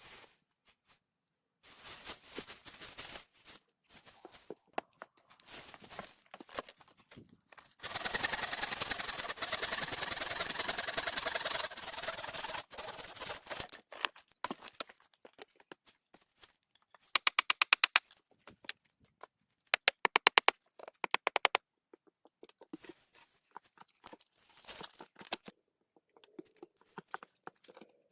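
Hands working with sticks and forest materials in a small space: scattered rustling and scraping, a longer steady scrape of about five seconds in the middle, then two short runs of sharp, rapid clicks.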